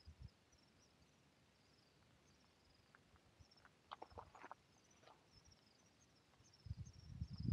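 Quiet open-air ambience with faint, high-pitched chirping repeating throughout, a few faint clicks about four seconds in, and low rumbling thumps starting near the end.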